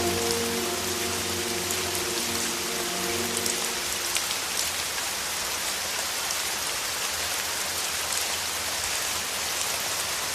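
Steady rain pattering on a surface, an even hiss with fine drop ticks. The last held notes of a song fade out about four seconds in, leaving the rain alone.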